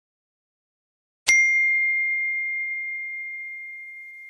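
iPhone notification sound: a single clear ding about a second in, ringing on at one steady pitch with faint higher overtones and fading away slowly.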